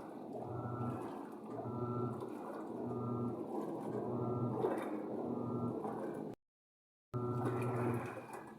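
Panasonic washing machine running a wash cycle: the motor hums in pulses about once a second, alternating with a higher tone, over water churning. The sound cuts out completely for under a second near the end.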